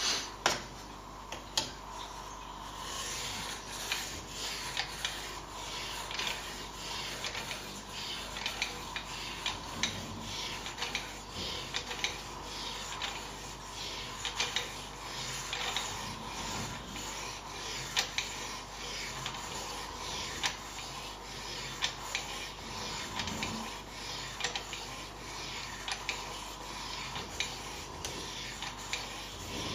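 A 1500-grit sharpening stone on a Ruixin Pro II guided sharpener rubbed back and forth along the steel blade of a Buck 110-style folding knife in many short, quick strokes, a steady scraping rasp. The first few seconds are quieter, with a few clicks, before the stroking picks up.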